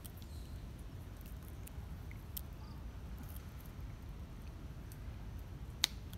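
Young macaques shelling and chewing peanuts: scattered small cracks and clicks of shells, one sharper crack near the end, over a low steady outdoor rumble.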